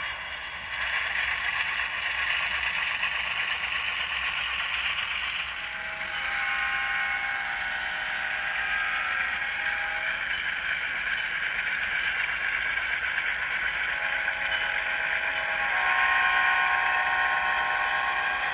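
HO scale model of an Alco RS3 diesel running on its sound decoder, with a steady hiss of engine sound and track noise. Its horn sounds a held chord from about six to ten seconds in, and again from about fourteen seconds in.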